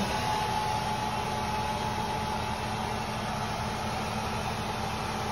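Philips hair dryer running steadily: an even blowing noise with a constant whine.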